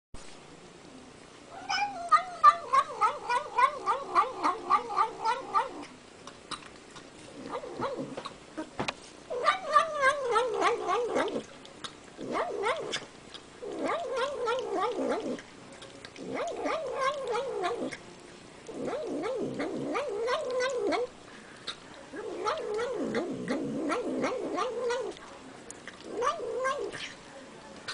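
Domestic cat making drawn-out, warbling yowl-like vocal sounds while eating, in about nine bouts of one to four seconds with short pauses between them. The pitch trembles rapidly throughout each bout.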